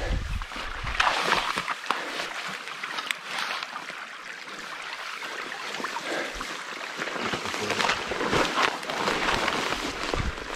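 Small forest brook babbling over stones, with bursts of wind on the microphone near the start and again later.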